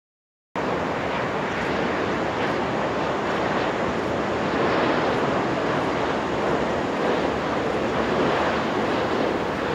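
Airbus A350-941 on final approach, its Rolls-Royce Trent XWB turbofans giving a steady rushing jet noise that cuts in abruptly about half a second in and swells slightly midway.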